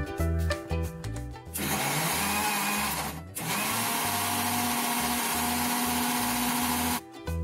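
Electric mixer grinder running, blending cooked tomatoes, onion, cashews and spinach with water into a wet paste. It starts about a second and a half in, stops for a moment, then runs again for about four seconds before cutting off.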